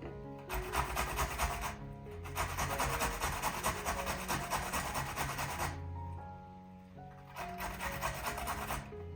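Food being grated on a hand grater in quick rasping strokes, three runs of them with short pauses between, over soft background music.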